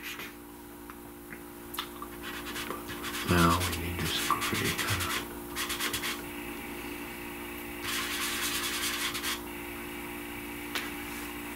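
Fingers rubbing soft pastel into paper to blend it: two spells of quick back-and-forth scratchy strokes, the first about three seconds in and the second near the end. A short low hum comes about three and a half seconds in.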